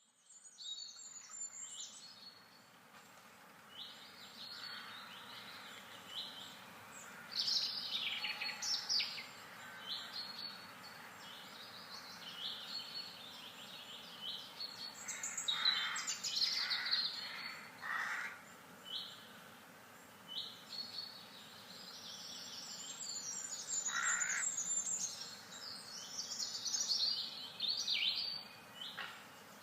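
Several birds chirping and singing at once, with short, repeated high notes overlapping throughout and a few lower, harsher calls mixed in.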